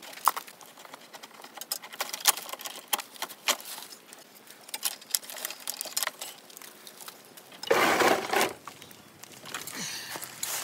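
Irregular light clicks and rattles of electrical wiring and metal fittings being handled as the power supply is pulled out of a gas pool heater. A louder scraping rustle comes about eight seconds in.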